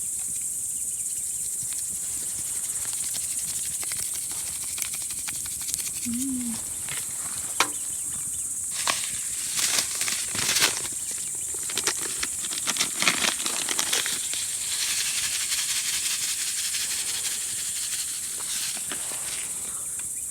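Steady high-pitched chirring of crickets, with scattered clicks and crackles about eight to fourteen seconds in.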